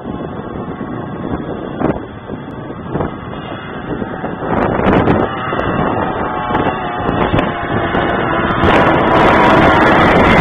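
Outboard motors of Thundercat racing inflatables running, the sound getting louder in the second half as the boats come nearer, with wind buffeting the microphone.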